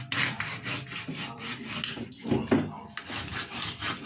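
Kitchen knife sawing back and forth through a raw chicken, the blade rasping against the wooden chopping board in quick repeated strokes, several a second. A louder, duller knock a little past halfway, likely the knife or carcass against the board.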